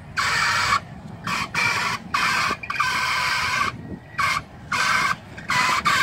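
Toyota Land Cruiser crawling over boulders: a low engine rumble under repeated harsh high squeals that cut on and off abruptly, some brief and some nearly a second long, as the truck works across the rocks.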